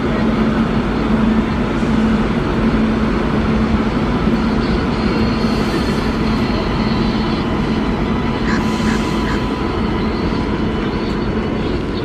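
Passenger train departing and rolling past slowly behind a WAP-7 electric locomotive: a steady rumble of coach wheels on the rails, with a steady low hum running under it.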